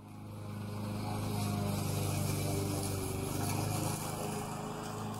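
A small engine running steadily.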